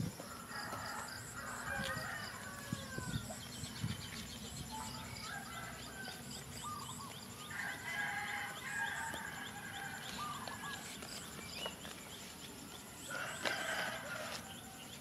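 Chickens clucking and calling in short bouts, about a second in, midway, and near the end, over a steady high buzz of insects. A few soft knocks come in the first few seconds.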